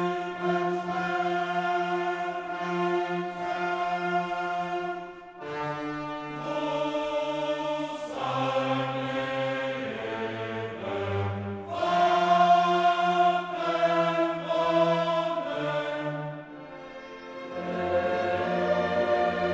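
Background music with slow, sustained chords that change every few seconds.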